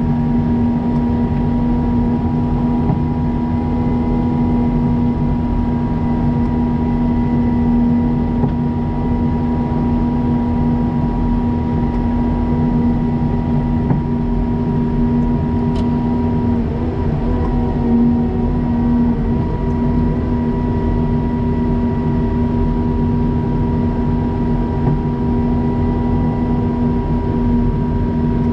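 Snow-plowing vehicle's engine running at a steady speed: a constant drone with a faint steady whine above it.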